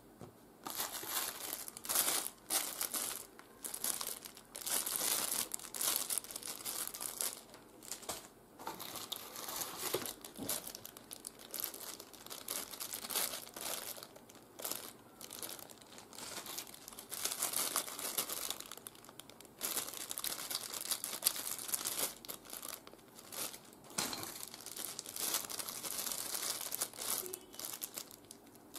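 Small clear plastic zip bags holding action-camera mounts and an adhesive pad crinkling as they are handled, in irregular bursts with short pauses.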